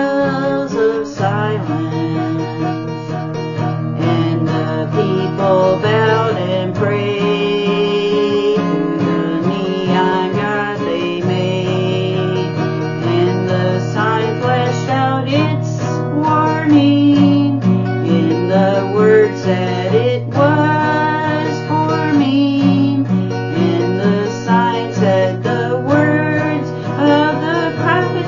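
Acoustic guitar strummed, with a woman singing along.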